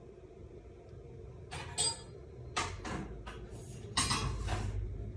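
A young calico cat's paws scuffling and tapping on a wooden floor as it rears up and swats at a finger: a handful of short scrapes and taps, the loudest about four seconds in.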